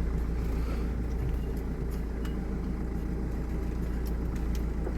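A van driving slowly over rough ground: a steady low engine and road rumble with a few faint ticks.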